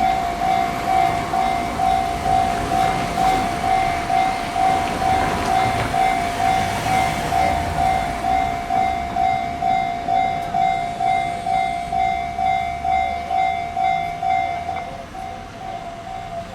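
Japanese level-crossing electronic warning bell ringing steadily, about two strikes a second, while a train runs past the crossing. The ringing drops in level near the end.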